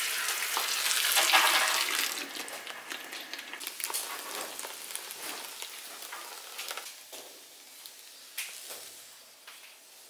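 Liquid poured into a hot wok, sizzling loudly as it hits the metal. The sizzle fades over several seconds into scattered crackles and pops as the bubbling settles.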